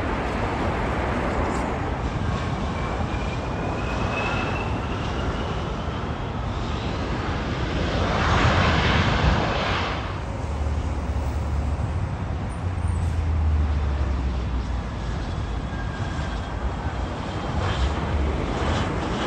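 Jet engine noise at an airport: an Alaska Airlines regional jet climbing out after takeoff, then a twin-engine business jet landing and rolling out. A faint whine rises in pitch a few seconds in, and the noise swells for about two seconds past the middle before settling into a low rumble.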